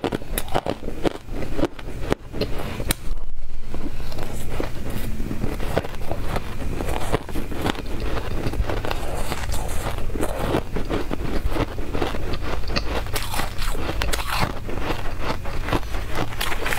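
Close-miked crunching of crushed ice as it is bitten and chewed, a dense run of crisp, irregular crackles, with a metal spoon scraping and digging through the ice in a steel pot.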